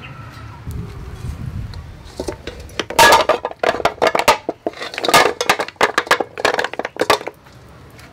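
Live clams clattering against one another and an aluminium pot as they are tipped in from a strainer basket: a quick run of clicks and clinks lasting about four seconds, starting about three seconds in.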